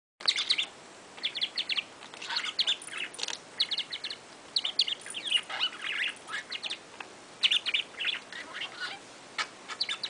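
Budgerigars chattering: quick runs of high chirps, clicks and warbles in bursts with short gaps.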